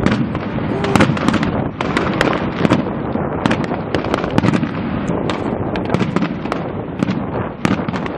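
Aerial fireworks display: a dense, unbroken run of bangs and crackles over a steady rumble of shells bursting.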